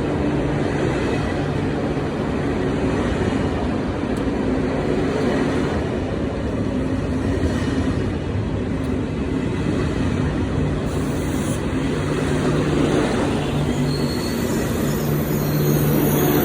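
KTX high-speed train running into the station: a steady, loud rumble of wheels on rail with a low hum, joined near the end by thin high-pitched squealing tones.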